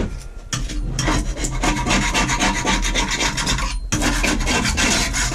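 Hand tool scraping flaky paint and surface rust off a rusty steel lawnmower deck in rapid, repeated strokes, with a brief pause about four seconds in.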